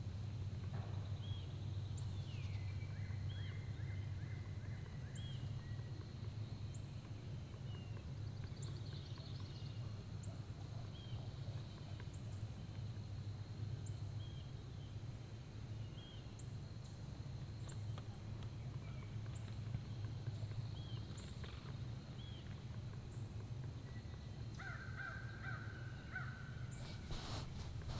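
Wild birds calling: a small bird's short, high chirps repeat every second or two, with a few harsher, buzzy calls near the start and again near the end, over a steady low hum.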